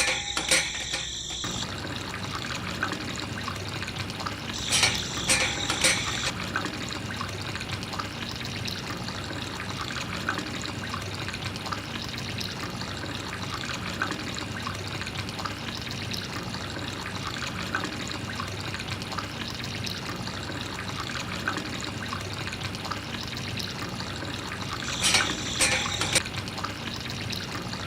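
Water trickling and pouring steadily, with a few brief louder bursts about five seconds in and again near the end.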